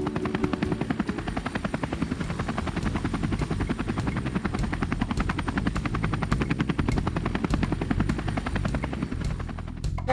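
Helicopter rotors chopping in a rapid, steady beat.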